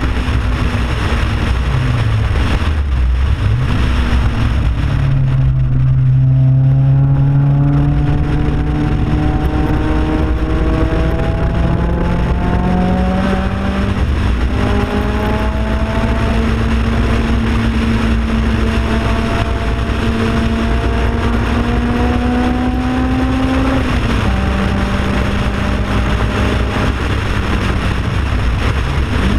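Sports car engine running hard at speed on a road course. Its pitch climbs in long pulls and drops back several times, with a constant rush of wind and road noise.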